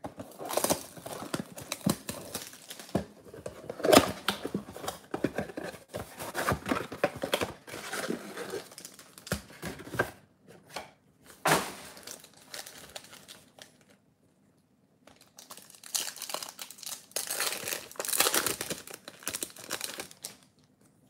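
Cardboard trading-card box opened and its foil card packs handled, rustling and crinkling with many small clicks. After a brief pause about two-thirds through, a foil card pack is torn open with a louder crinkling tear.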